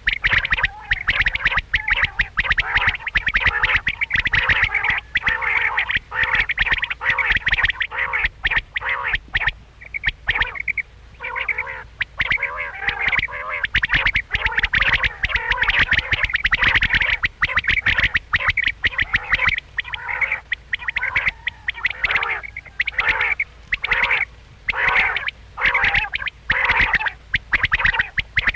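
Quails calling, in quick runs of short repeated notes broken by brief pauses.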